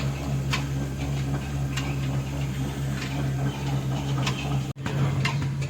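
Heavy old black diesel engine running steadily with a low hum, a sharp tick coming about every second and a quarter. The sound drops out for an instant near the end.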